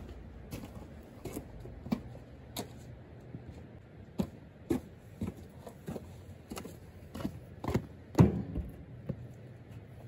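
A string of irregular light knocks and clicks, one or two a second, the loudest a little after the eighth second, over a faint low hum.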